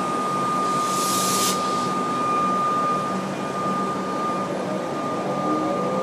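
Comeng electric suburban train moving off from the platform: a steady high whine over a low hum, a short burst of air hiss about a second in, and motor tones rising in pitch as it picks up speed from about four seconds in.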